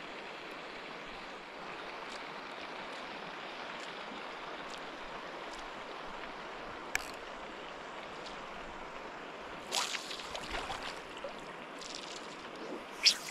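River water flowing and lapping steadily around a camera held just above the surface. A cluster of sharper splashes comes about ten seconds in, and a loud sudden one near the end.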